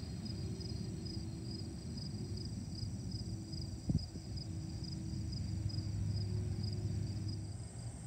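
Distant jet engines of a FedEx twin-engine widebody freighter at takeoff power as it lifts off: a low rumble that grows louder past the middle and eases near the end. Crickets chirp in steady, regular pulses over it, and there is a single brief knock about four seconds in.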